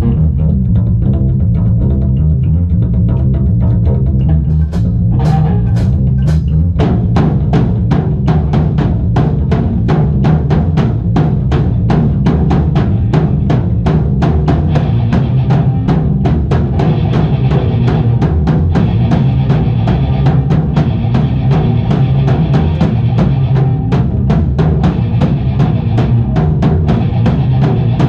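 Live doom/stoner rock band playing loud in a rehearsal room, recorded raw on the room's ambient sound. A heavy low bass riff opens the song. The drum kit comes in about five seconds in and keeps a fast, steady run of cymbal strokes under the riff.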